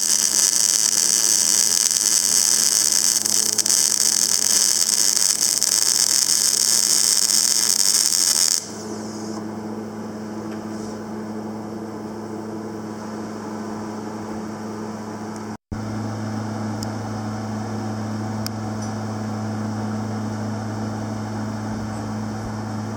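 Panasonic YD-350GB2 semi-automatic welder: a loud, steady hiss-crackle of the welding arc for about the first eight and a half seconds, then the arc stops and only the welder's steady electrical hum is left. The sound cuts out for an instant about two-thirds of the way through.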